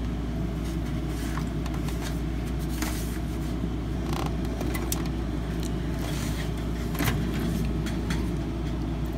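Steady low machine hum and rumble, with scattered light clicks and rustles from hands handling cables and connectors inside a desktop computer case; the handling is a little louder about seven seconds in.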